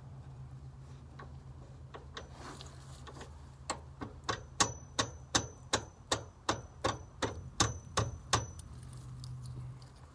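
A run of about a dozen evenly spaced metallic clicks, roughly three a second, each with a short high ring, as a wrench turns the traction bar's threaded adjuster to lengthen it into its mounting hole. A steady low hum runs underneath.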